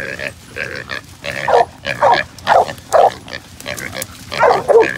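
A feral hog squealing and grunting in short, repeated cries while bay dogs are on it, with louder squeals through the middle and near the end.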